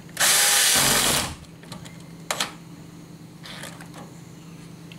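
Power drill driving a wood screw into the drawer's wooden side rail, a single run of about a second with a motor whine. A couple of light clicks follow.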